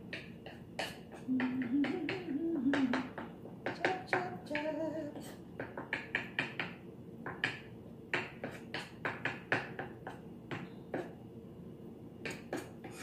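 Kitchen knife chopping boiled eggs on a cutting board: quick, uneven taps of the blade against the board, several a second. A voice hums briefly between about one and three seconds in and again around four seconds in.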